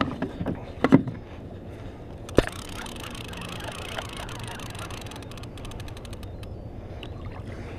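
A few knocks as the rod is lifted from its holder, then a sharp click and a run of fast clicking as a Charter Special TR 2000 lever-drag reel is cranked to bring in a hooked fish. The clicking thins out near the end.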